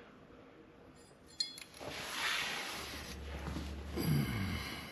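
Aerosol can of WD-40 spraying a hiss of about two seconds onto the chain adjuster threads, after a short click about a second in.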